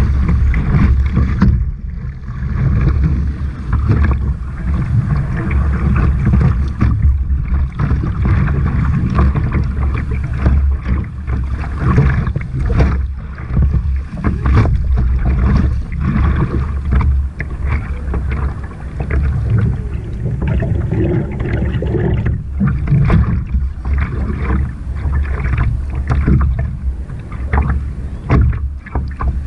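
Sea water sloshing and splashing around a surf kayak as it is paddled through the surf, with wind buffeting the camera's microphone and giving a heavy, unsteady low rumble.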